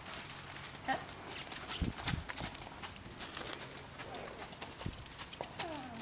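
Hoofbeats of a ridden horse moving over sand arena footing: soft, irregular thuds and scuffs.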